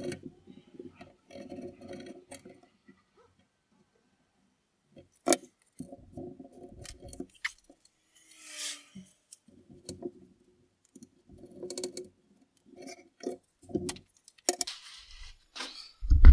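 Hand tools and metal parts clinking and rattling on and off while the parking brake cable is undone from the vehicle frame, with a sharp metallic click about five seconds in.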